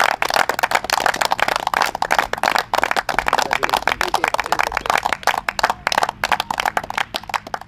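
A small group of people applauding, many hand claps overlapping, thinning out near the end.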